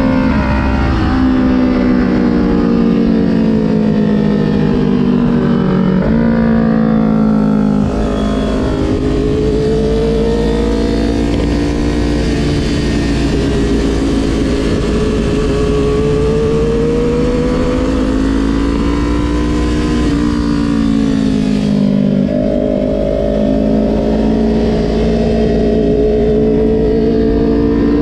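2020 Kawasaki Ninja 400's parallel-twin engine heard from on board, its note rising under throttle and falling again several times as the rider rolls off and lets engine braking slow the bike into corners. A steady rush of wind runs under it.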